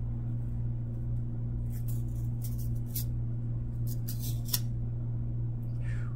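Trading cards being peeled apart and slid off a stack by hand: two clusters of short dry scrapes and rustles, about two and four seconds in, over a steady low hum. The cards are old ones that are sticking together.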